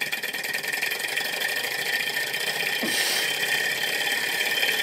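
Miniature flame-heated Stirling engine running steadily, its piston and flywheel making a fast, even mechanical clatter.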